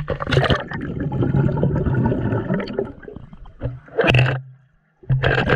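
Pool water sloshing and gurgling around a waterproof action camera as it goes in and out of the water, with a muffled churning while submerged. A louder splash comes about four seconds in and another near the end.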